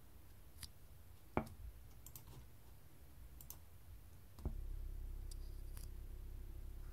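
A few sharp computer-mouse clicks, then about four and a half seconds in, the 8-inch Philips woofer, running in free air, starts playing a very low test tone: a steady low hum with a fast flutter, its cone pumping visibly.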